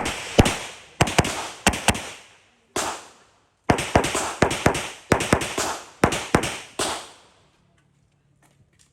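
A 9mm Glock 34 Gen 5 pistol firing a fast string of about seventeen shots in quick pairs and groups over some seven seconds, each crack echoing briefly, then stopping.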